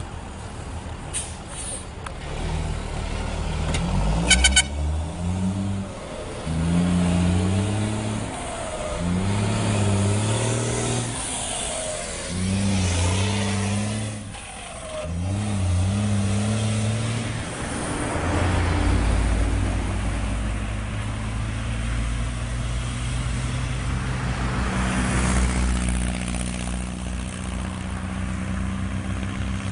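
Volkswagen Constellation truck's diesel engine with a straight-through exhaust being revved about seven times in quick succession, each rev rising in pitch and dropping back, then settling into a steady run from about halfway through. A short, sharp burst of noise cuts in about four seconds in.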